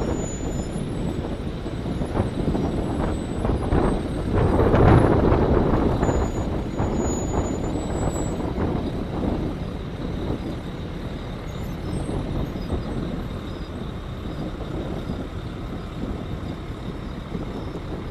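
Convoy of light military utility vehicles driving on a dusty gravel road: steady engine and tyre noise, loudest about five seconds in, then slowly fading as they drive away.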